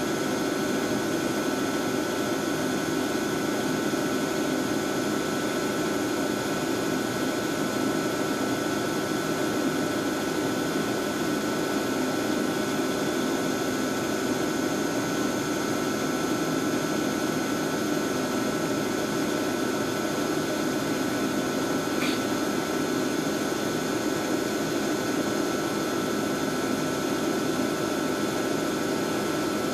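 Screen PlateRite 8100 platesetter running while it images plates: a steady machine whir with constant high whining tones from its spinning drum. A single faint tick about two-thirds of the way through.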